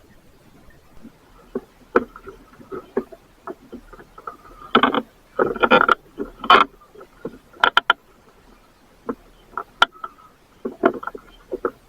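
Irregular knocks, bumps and clatters on a small fishing boat, coming in clusters with short gaps between.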